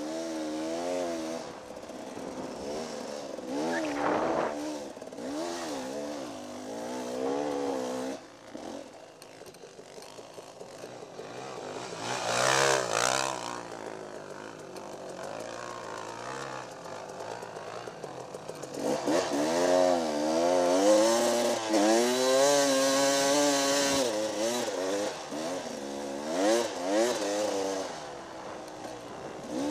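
Dirt bike engine revving up and down again and again as the bike is ridden through soft sand dunes. Rushes of wind noise hit the microphone about a third of the way in and again past the middle.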